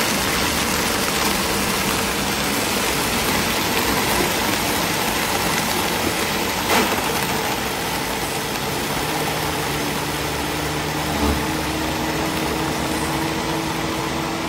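Countertop blender running at full speed, crushing mango pieces and ice into a shake: a steady, loud motor drone with dense churning noise, settling into a clearer steady motor tone from about ten seconds in as the mixture turns smooth. A brief knock about seven seconds in.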